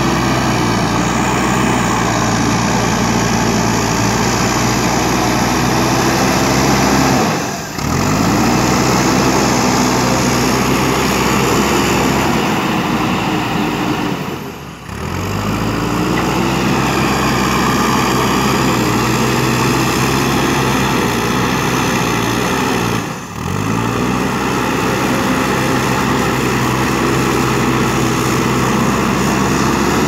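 Diesel engine of a JCB backhoe loader running steadily under load while it works loose soil with its front bucket. The engine note dips briefly three times and climbs back up each time.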